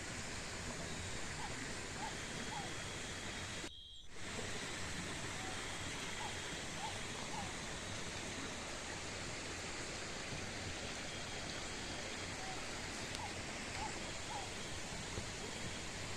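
Steady, even rushing outdoor noise, broken by a brief dropout about four seconds in, with faint short chirps scattered through it.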